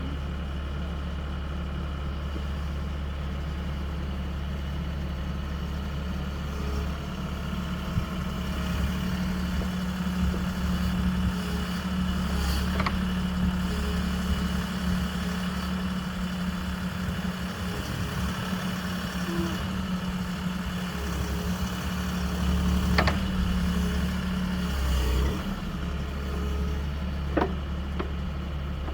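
Backhoe engine running steadily, working harder for most of the stretch as the boom and bucket dig, with a few short sharp knocks.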